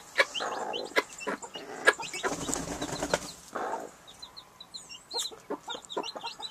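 Newly hatched chicks peeping in a straw nest beside their broody hens: many short, high, falling cheeps, coming thicker in the second half, mixed with low clucks and rustling in the straw.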